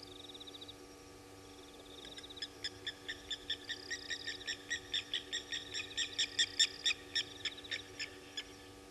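A night animal's call: a long series of sharp, clicking notes, about five a second, that grows louder and then fades away. Faint short insect-like trills run underneath.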